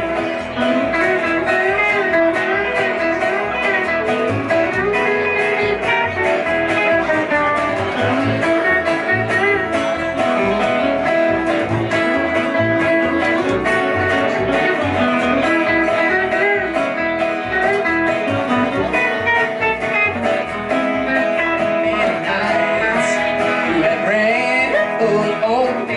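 Live country-blues band playing an instrumental passage: electric guitar lines that bend in pitch over a steady plucked upright-bass beat and acoustic guitar.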